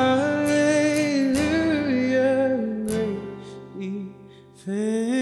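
Worship song: a singer holds long, sliding notes over strummed acoustic guitar, with a short break in the voice a little under four seconds in before it comes back.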